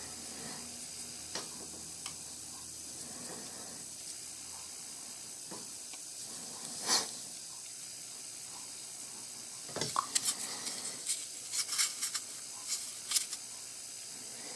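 Small plastic Pez dispenser being handled: a few isolated clicks, then a quick run of clicks and taps about ten seconds in, over a steady background hiss.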